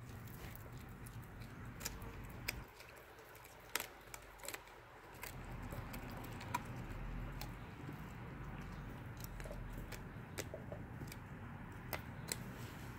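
A Lycan Shepherd puppy chewing a raw whole tilapia: faint crunching with scattered sharp clicks of teeth on the fish.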